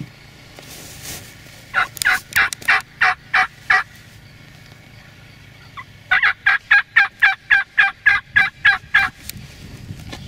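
Turkey yelping: two series of loud, evenly spaced yelps, about seven notes and then, after a pause of a couple of seconds, about twelve more at roughly four a second.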